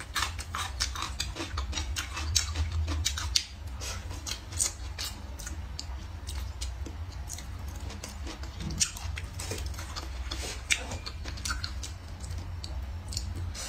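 Chewing stir-fried food, with irregular crisp clicks and crunches, over a low steady hum.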